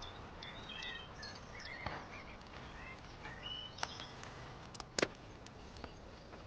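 Small birds chirping in the background. A few sharp clicks break in, the loudest a quick double click about five seconds in.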